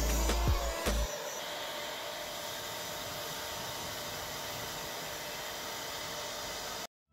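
Hand-held hair dryer running with a steady whoosh, under background music that stops about a second in; the sound cuts off suddenly near the end.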